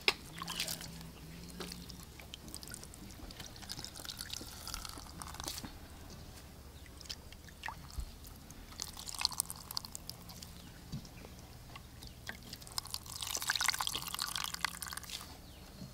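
Wet grated coconut squeezed by hand, the milky liquid dripping and pouring through a plastic strainer into a bowl, with soft squelching; the pouring is louder for a couple of seconds near the end.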